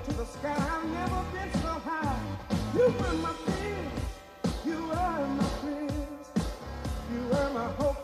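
Background funk music with sung vocals gliding in pitch over a steady drum beat.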